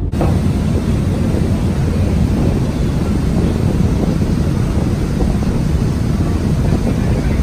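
Wind buffeting the microphone aboard a moving ferry, with the rush of water around the hull.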